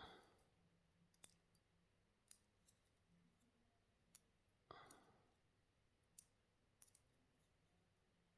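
Faint scattered clicks, with two brief soft scraping sounds, from a small tool working a glued camera module loose from a phone's circuit board.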